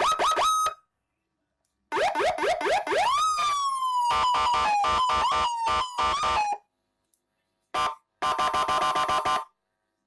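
Electronic 7-tone patrol-escort siren module sounding through a 20-watt Narae horn speaker, switched between several tones with short silences between: a few quick rising chirps, then a run of rising whoops that turns into a falling, stuttering tone, a brief blip, and near the end a rapid choppy tone.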